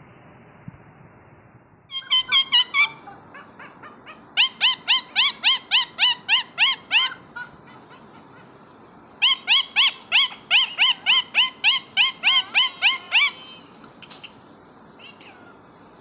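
Indian ringneck parakeet calling in rapid runs of short, high-pitched repeated notes, about five a second. There are three bouts: a brief one about two seconds in, then two longer runs, the last the longest.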